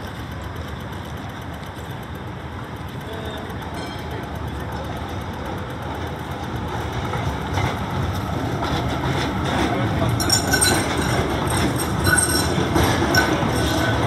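A B-class articulated tram drawing close and passing, its running noise on the rails building over the last several seconds. A run of clicks from the wheels and a thin high squeal come in near the end, as the tram goes by close.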